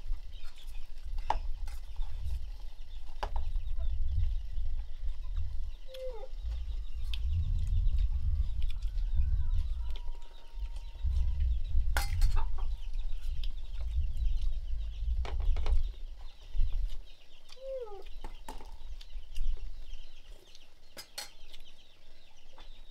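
Chickens clucking now and then, with clinks of spoons against bowls during a meal. A low rumble runs under it and drops away about three-quarters of the way through.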